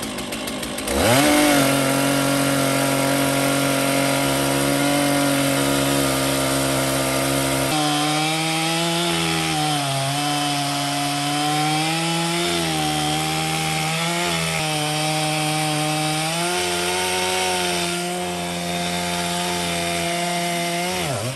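Two-stroke chainsaw revving up about a second in and cutting into the end of a large log. Its engine pitch wavers up and down as it works in the cut, and it stops just before the end.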